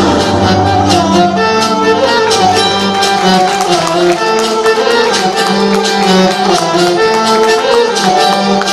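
Tamil film song played for a dance, in an instrumental passage: a sustained melody over a steady, regular percussion beat.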